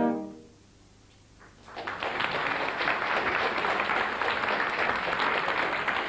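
The closing chord of a French horn quartet dies away into the hall's reverberation. After about a second of quiet, an audience starts applauding and keeps on clapping steadily.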